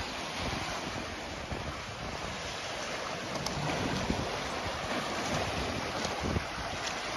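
Choppy lake waves washing and splashing over shoreline rocks and pebbles, with wind buffeting the microphone.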